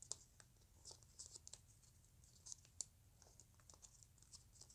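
Faint, irregular crisp ticks and scratches of origami paper being pinched and folded between the fingers.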